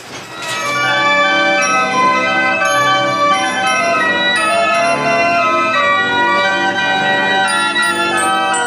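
Carousel band organ playing a tune in sustained organ notes with bell-like tones, starting about half a second in.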